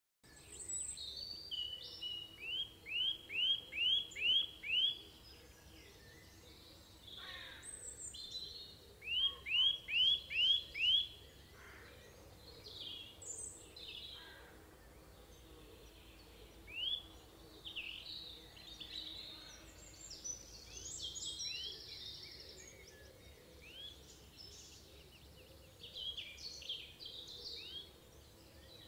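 Songbirds singing outdoors over faint steady background noise. One bird repeats a clear, high note about six times in quick succession, twice over, and other birds call and twitter between these runs.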